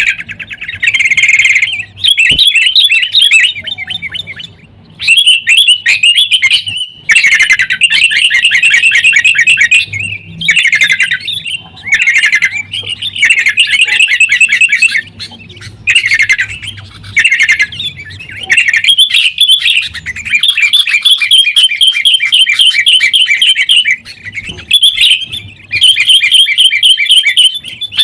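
Sooty-headed bulbuls (kutilang) calling noisily in a fighting exchange: loud, fast chattering trills in repeated bursts of a second or two, with short pauses between, over a faint low hum.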